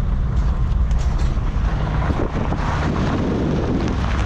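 Cabin noise of a Volkswagen Westfalia bus driving at speed: a steady low engine and road drone with wind buffeting the microphone.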